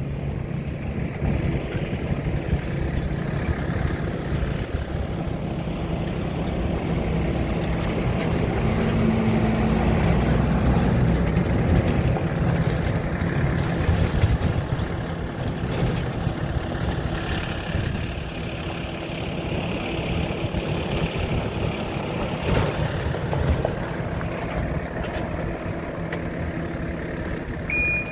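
Engine of a 2001 Ford F-450 bucket truck running steadily, growing louder for a few seconds in the middle before settling back.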